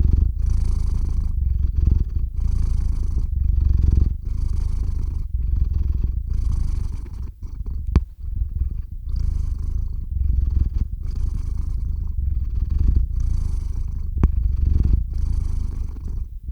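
Domestic cat purring right against the microphone: a continuous low rumble that swells and eases with each breath, about one breath every two seconds. Two sharp clicks sound about eight seconds in and again near fourteen seconds.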